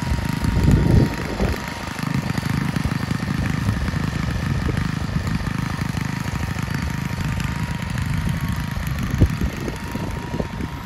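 Ride-on lawn mower engine running steadily while mowing, a low rumble with a steady high tone through it. It swells louder about a second in, and there is a brief knock near the end.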